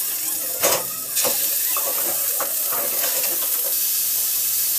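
Mutton pieces sizzling steadily in hot ghee and oil in a frying pan as they start to roast, with a few brief knocks in the first second or two.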